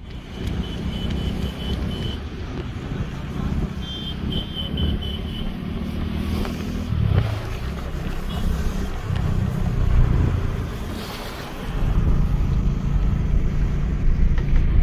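Car driving along a road, heard from inside the cabin: a steady low road and engine rumble, with a few brief high pips in the first half.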